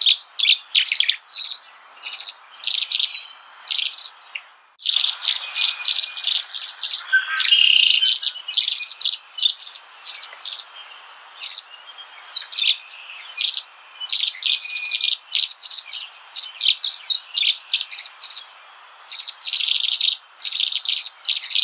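Birds chirping: quick runs of short, high chirps repeating over and over, with a short gap about five seconds in.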